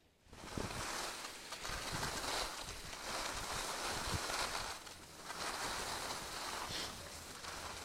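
Skis scraping and hissing over packed snow on a groomed piste, starting abruptly and swelling and fading with each turn about every two seconds, with low rumbling of wind against the microphone.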